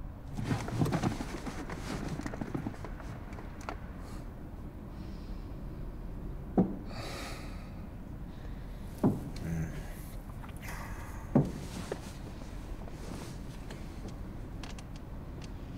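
Three sharp knocks on a car's side window, a couple of seconds apart, over quiet breathing inside the car.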